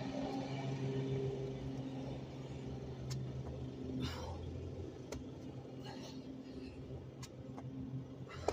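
Steady low motor hum with a man's heavy breaths and a few light taps as he does burpees on concrete.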